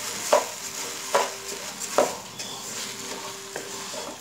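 A wooden spatula stirring and scraping rice around a nonstick pan, knocking against the pan about once a second, over a sizzle of the soaked rice frying in ghee while its moisture cooks off.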